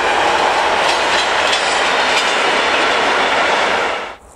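Freight wagons rolling past close by, a loud steady rumble and clatter of wheels on the rails. It cuts off sharply near the end as the last wagon goes by.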